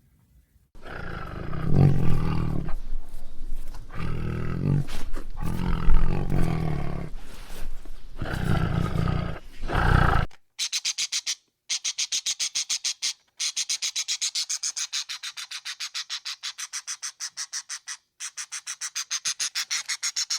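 A big cat roaring: a run of loud, deep roars for about ten seconds. It then gives way to a different animal's rapid train of high-pitched chirps, about five a second, broken by a few short gaps.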